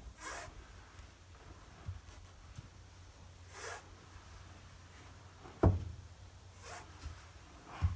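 Aluminium canoe being worked onto a car roof by hand: three brief scraping rushes, a sharp knock about five and a half seconds in, and a lighter knock near the end, over a low rumble of wind on the microphone.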